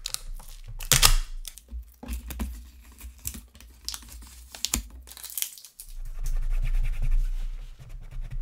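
An old sticker being peeled off a laptop lid and crumpled: irregular tearing and crinkling strokes, the loudest about a second in. Near the end, a paper towel rubs across the lid.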